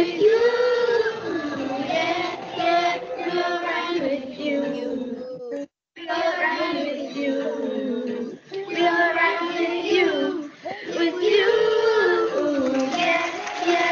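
Children singing a song together as a virtual choir, their separately recorded voices mixed into one track. The sound cuts out completely for a moment about halfway through.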